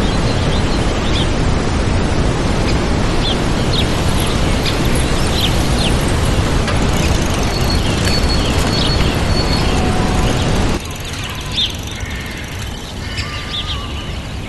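Waterfall rushing steadily, with small birds chirping and whistling over it. About eleven seconds in, the water noise drops away sharply and the birdsong carries on over a quieter background.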